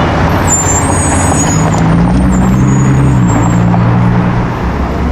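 A car engine running loud and deep, its note stepping up and down in pitch, over steady street traffic noise, with thin high squeals in the first half.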